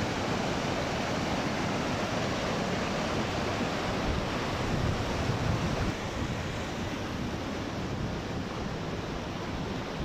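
Mountain stream rushing and tumbling over rocks in a small cascade, a steady even roar that eases slightly about six seconds in.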